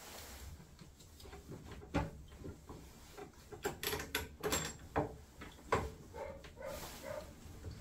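Hand work on the copper pipework and clips inside a Worcester-Bosch combination boiler: a run of irregular small clicks and knocks as fittings are handled and pushed into place, busiest from about three and a half to six seconds in.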